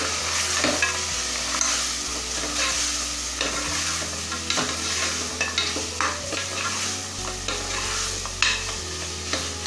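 Mutton, tomato and masala powders frying in an open stainless-steel pressure cooker, sizzling as they are sautéed. A wooden spatula stirs and scrapes against the metal pot with irregular clicks and knocks.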